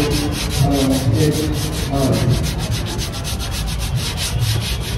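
Sandpaper rubbed back and forth by hand over body filler on a car's running board, in quick, even strokes of about five or six a second: the putty over the repaired dents being sanded flat.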